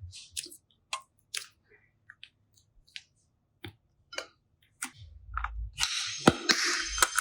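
Slime being handled: scattered small sticky clicks and squishes, then from about six seconds in a dense, continuous crackling.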